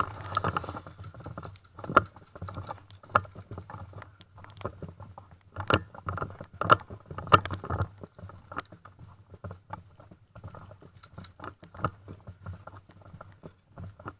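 Scattered sharp clicks and taps at irregular intervals, over a faint steady hum.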